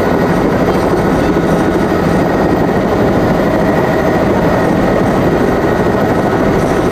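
Helicopter engine and rotor running steadily on the ground, heard from inside the cabin as a loud, even drone.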